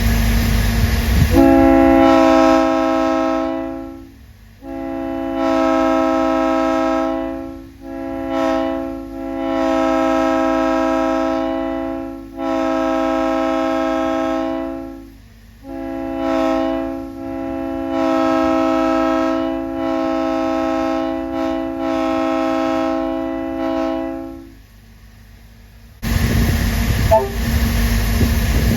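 Multi-chime locomotive air horn sounding a chord of several tones in a string of long and short blasts, cutting off cleanly between them. A loud rushing noise comes before the first blast and again about a second and a half after the last one stops.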